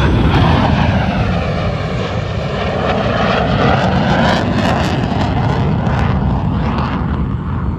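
Airplane engine noise during a low fly-past, loud and steady, its tone sweeping down and back up as the aircraft passes.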